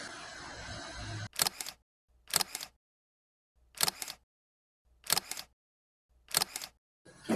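Camera shutter firing five times, a sharp double click each time, roughly one shot every second and a quarter. A steady hiss runs underneath for the first second or so.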